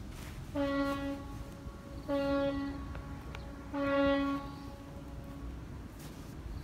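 A horn sounding three times at one steady pitch, each blast loud for about half a second and then held more faintly, about a second and a half apart.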